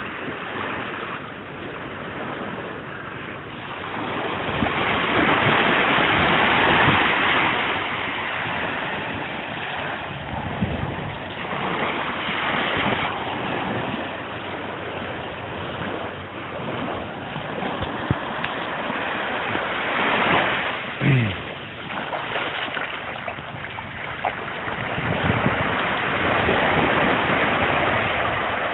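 Small waves breaking and washing up a sandy beach, the rush of the surf swelling and ebbing every few seconds. A brief falling tone sounds about three quarters of the way through.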